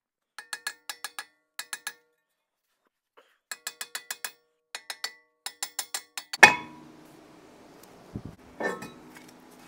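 Hammer blows on the rust-seized front brake rotor of a 2015 Subaru Outback, knocking it free of the hub. Quick runs of sharp metallic strikes come at about five or six a second, and the cast-iron disc rings after each one. About six and a half seconds in, one much harder blow leaves the rotor ringing for a few seconds.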